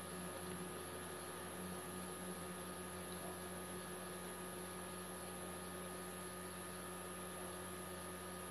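Steady electrical hum with a faint high-pitched whine over a soft background hiss.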